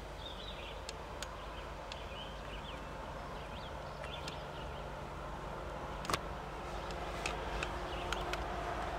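Diesel freight locomotives (a GE C44-9W and an EMD SD75I) heard from a distance as they approach, a low steady rumble with a faint drone that grows slightly toward the end. Small birds chirp over it, and there are a few sharp clicks.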